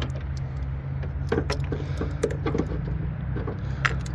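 Scattered sharp metallic clicks and clinks from a ground wire and hand tools being handled and pressed into place, over a steady low hum.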